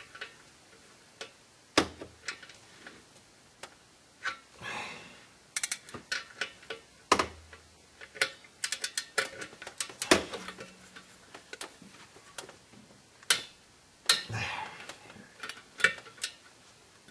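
Hand ratchet clicking in short irregular runs while tightening clutch pressure plate bolts through a bit, with light metal clinks of the tools.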